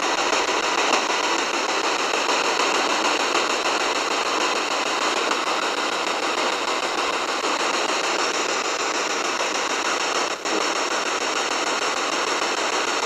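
Spirit box (a radio scanner sweeping through stations) giving out a steady hiss of static, with a brief break about ten seconds in.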